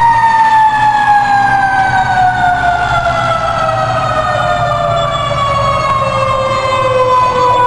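Fire siren winding down: one long tone falling slowly and steadily in pitch, with a fainter wavering siren behind it in the second half and a low steady rumble underneath.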